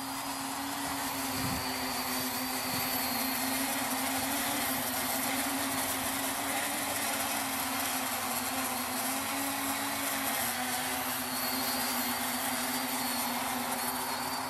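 Home-built quadcopter's electric motors and propellers buzzing steadily as it flies low, the pitch wavering slightly as the throttle shifts. The sound grows louder over the first couple of seconds, then holds steady.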